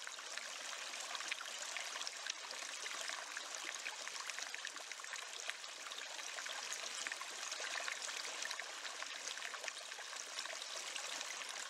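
Harbour water lapping and trickling against a floating dock and moored boat hulls: a faint, steady splashing hiss full of tiny ticks.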